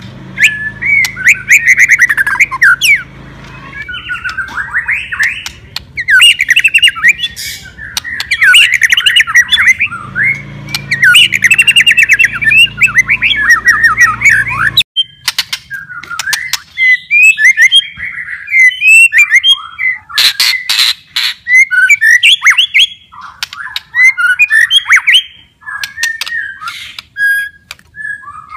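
White-rumped shama in full, energetic song: long runs of fast, varied trills and warbled phrases, dense in the first half. In the second half come shorter phrases with sharp clicking notes mixed in.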